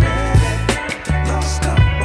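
Music with a steady beat, strong bass notes and drum hits.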